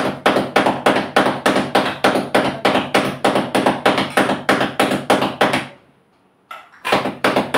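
Palms patting rotti dough flat on a kitchen counter: a fast, even run of slapping taps, about four or five a second, which stops for about a second near the end and then starts again.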